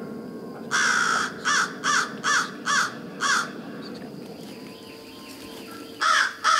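Crow cawing: one long caw followed by four shorter caws about half a second apart, then another run of caws beginning near the end.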